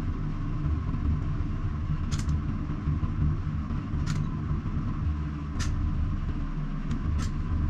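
A steady low rumble with four sharp clicks spaced about a second and a half to two seconds apart.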